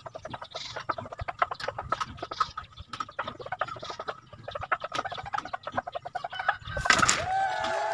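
Chicken clucking in a quick run of short, repeated calls. About seven seconds in there is a sudden loud clatter as the propped bamboo-and-net trap drops over it.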